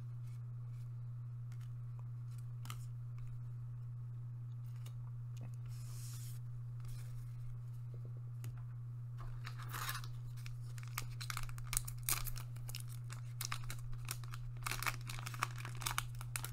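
Foil trading-card booster pack wrapper being crinkled and torn open: a run of crackles and rips from about nine seconds in, after a few faint ticks of cards being handled. A steady low hum runs underneath.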